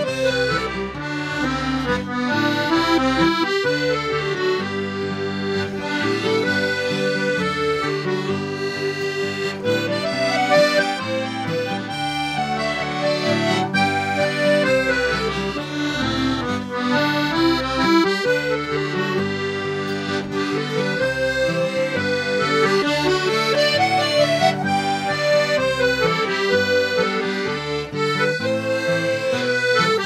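Accordion and acoustic guitar playing a traditional folk tune. The accordion carries a flowing melody over steady, sustained bass notes.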